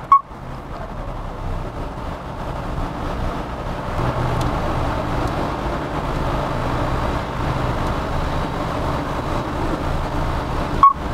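A short scan-tool beep as OK is pressed. Then the 2011 Jaguar XF's ABS hydraulic unit runs its pump motor with a steady mechanical hum during the automated brake-bleed cycle, building over the first few seconds and holding. A second short beep comes near the end as the cycle finishes.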